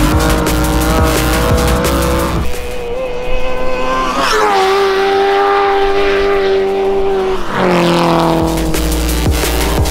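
Background music with a steady beat and long held notes, mixed with car engines revving high on an ice track.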